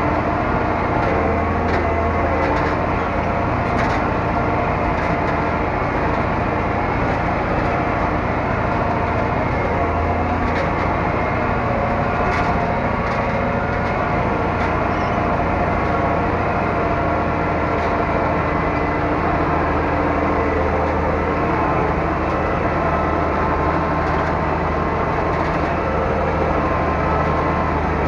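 Zetor 12145 tractor's six-cylinder diesel engine running steadily while pulling a field drag, heard from inside the cab, with a few faint clicks over the drone.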